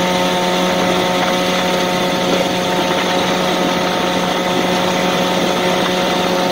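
Small boat's outboard motor running steadily at cruising speed, a constant engine hum with a rush of water and wind noise underneath.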